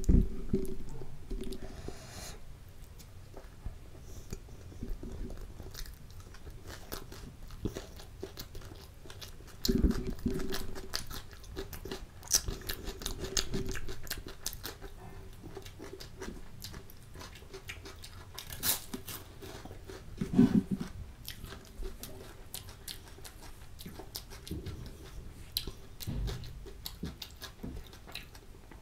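Close-miked chewing and biting of chole and kulcha bread, with crisp crunches as cucumber slices are bitten; louder bites come about ten seconds in and again about twenty seconds in.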